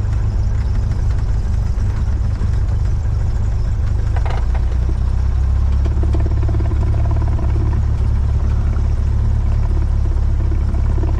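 Single-engine light aircraft's piston engine and propeller running, heard from inside the cockpit while it taxis: a steady low drone that grows louder a little past halfway.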